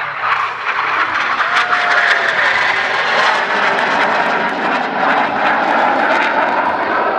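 IAR 99 Șoim jet trainer's Rolls-Royce Viper turbojet noise: a loud, steady jet roar of an aircraft passing at an airshow display.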